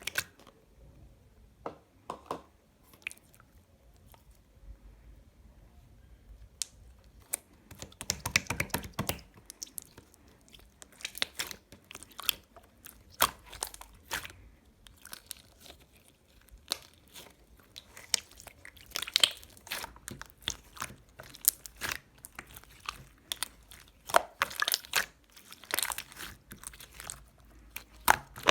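Clay-mixed slime being squeezed, stretched and poked by hand, giving irregular sticky clicks and crackles that come thicker and faster after the first ten seconds.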